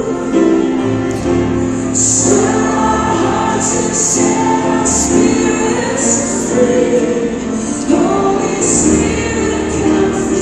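Slow gospel worship song: a female-led choir singing long held notes over instrumental accompaniment.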